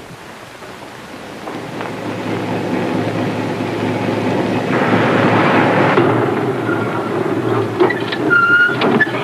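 A car's engine and road noise grow louder as it drives up, with a brief high squeal near the end.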